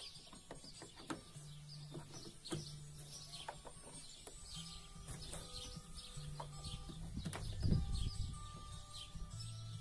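Birds chirping in the background over faint background music with held low notes, and scattered clicks and knocks from handling parts; one louder thump comes near the end.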